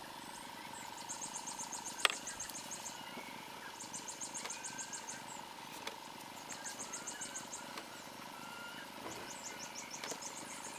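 Rapid high-pitched chirping trills from a small animal, four runs of about a second each, over a steady faint hum. One sharp click sounds about two seconds in.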